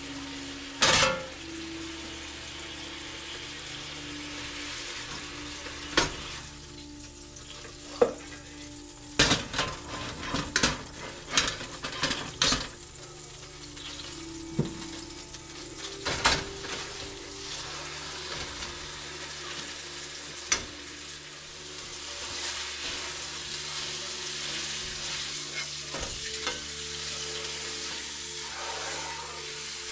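Pieces of beef blade roast searing in butter and oil in a frying pan, a steady sizzle. Sharp clinks and knocks from the utensils and pans come through it, a quick run of them from about nine to thirteen seconds in.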